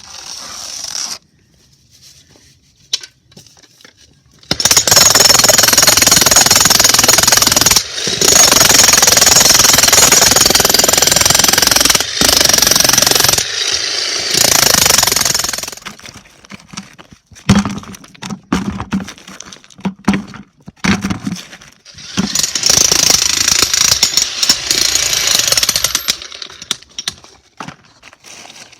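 An electric jackhammer breaks up a concrete driveway in two long runs of hammering, the first about ten seconds long and the second about four. Separate knocks and clatters fall between the runs.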